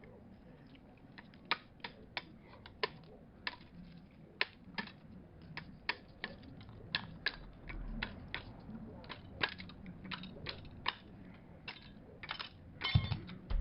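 Sharp clicks at an irregular pace, one or two a second, with a louder clatter near the end: cable ties being ratcheted tight to hold the compressed spring of a lever coffee machine's group head.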